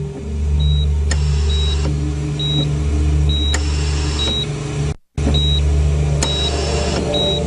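Hospital patient monitor beeping about once a second over a steady low hum, with a whooshing swell every two to three seconds. The sound drops out briefly about five seconds in.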